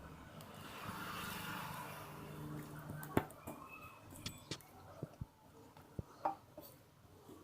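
Homemade glue slime being squeezed and stretched by hand: a soft sticky squelching, then a run of sharp clicks and pops from about three seconds in.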